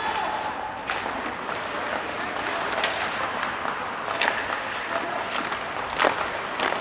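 Ice hockey in an arena: sharp clacks of sticks striking the puck and each other in a scramble at the net, about five in all, over a steady crowd and rink noise.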